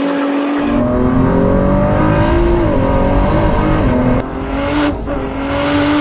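Ford GT's twin-turbo V6 being driven hard on a race track, its pitch rising and falling as it accelerates and shifts. About four seconds in it briefly drops in loudness, then climbs steadily in pitch again.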